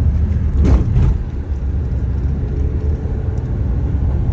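Moving road vehicle climbing a winding hill road, with a steady low rumble from engine and road. A short rush of noise comes about three-quarters of a second in.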